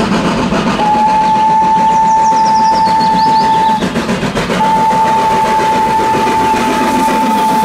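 Steam locomotive dressed as Thomas the Tank Engine, running steadily as it hauls passenger coaches, sounding two long, steady whistle blasts: the first about a second in, lasting about three seconds, the second starting about halfway through.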